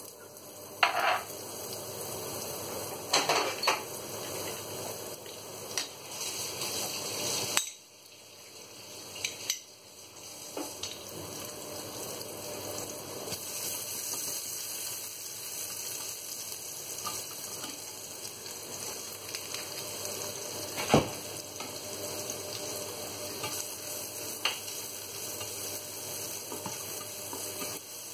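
Ginger strips frying in hot oil in a nonstick frying pan, a steady sizzle while they are stirred. Sharp clicks and knocks of a utensil against the pan come now and then, the loudest about two-thirds of the way through.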